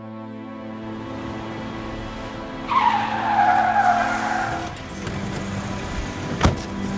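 A car's tyres squeal as it brakes hard, a loud screech that starts about three seconds in and falls in pitch over about two seconds, over a low music drone. A sharp bang, a car door, comes near the end.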